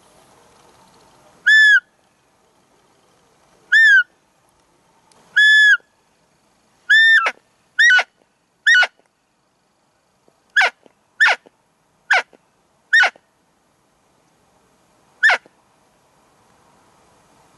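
Roe deer call imitating a doe's high-pitched 'fiep' during the rut, used to draw in a buck. It gives eleven short, clean squeaks: the first three are held at one pitch, and the later, quicker ones drop sharply in pitch at their ends.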